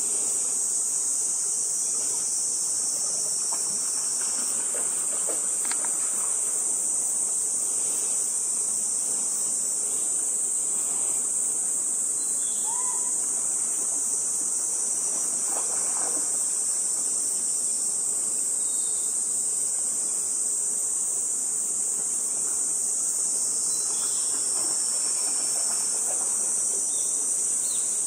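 A steady, high-pitched chorus of summer insects that does not let up, with a few faint short chirps now and then.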